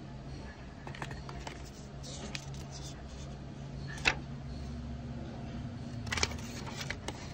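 A folded paper quick-start booklet and a cardboard box insert being handled and unfolded: soft paper rustles, a single sharp click about four seconds in, and another burst of rustling around six seconds. A steady low hum runs underneath.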